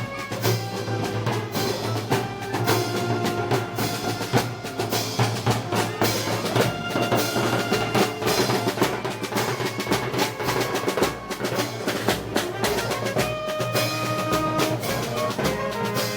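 Moros y Cristianos festival band music: drums beating steadily under held wind-instrument notes.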